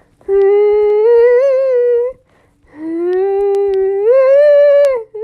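A high voice humming two long held notes, the second starting lower and stepping up near the end.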